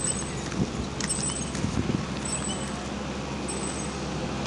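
Outdoor roadside ambience: a steady low hum and noise, with a short thin high-pitched chirp repeating about once every second or so.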